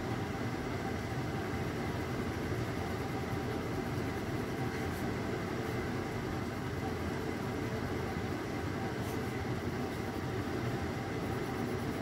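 A steady low background hum and rumble that does not change.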